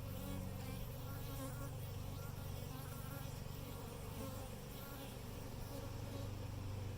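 Honeybees buzzing around their opened hive box, a dense steady buzz over a continuous low hum.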